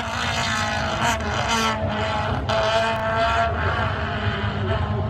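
Classic racing vehicle's engine running hard at high revs as it accelerates up the hill-climb course. Its note is broken briefly about one and two seconds in, like quick gear changes, and climbs slowly around the middle.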